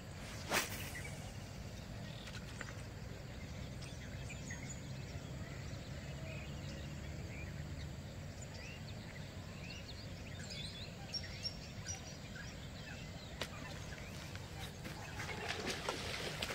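Quiet outdoor ambience: a steady low rumble with scattered faint bird chirps, and a single sharp click about half a second in.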